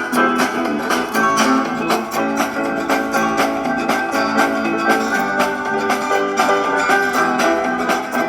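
Background music led by a plucked acoustic guitar, with a quick, steady picking rhythm.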